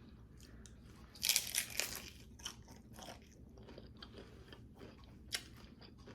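A bite into a crisp low-carb taco shell, a crackly crunch about a second in, followed by chewing with smaller crunches now and then.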